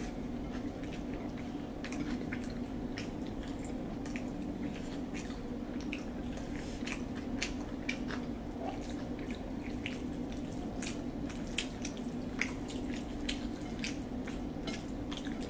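Two people eating chicken biryani by hand: wet chewing and lip-smacking clicks, and fingers working the rice on their plates, over a steady low hum.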